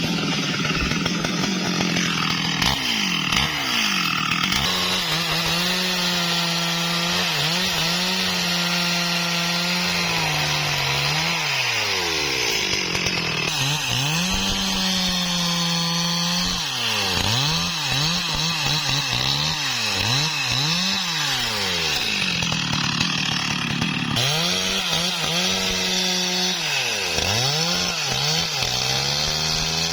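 STIHL MS382 two-stroke chainsaw running at high revs while cutting wood. Its pitch repeatedly sags and recovers as the chain bites into the cut and eases off, with these dips coming more often in the second half.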